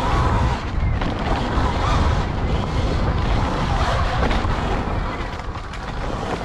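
Wind buffeting the microphone in a heavy low rumble, with a faint wavering motor note from a dirt bike behind it.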